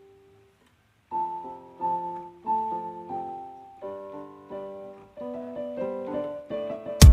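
Background piano music: single notes and soft chords, each struck and left to fade, starting about a second in. A loud, beat-driven music track cuts in at the very end.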